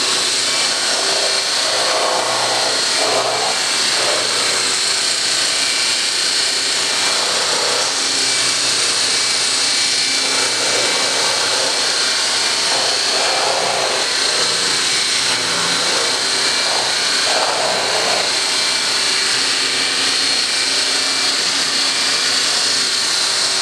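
Handheld electric immersion blender running steadily with a high motor whine, its blade churning a liquid ice cream mix in a plastic tub.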